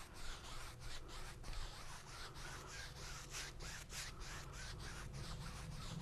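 A 2-inch oil-painting brush sweeping lightly over a wet oil-painted canvas in repeated faint strokes, blending and softening the background colours.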